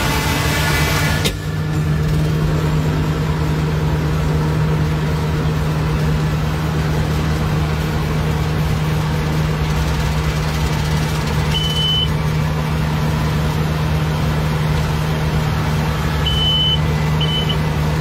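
Rice combine harvester's engine running steadily under load, heard from the operator's seat, with a constant low drone. Three short high electronic beeps sound, one around the middle and two close together near the end.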